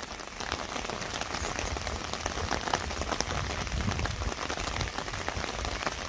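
Steady rain falling on pond water and a wet wooden boardwalk: a dense, even patter of drops.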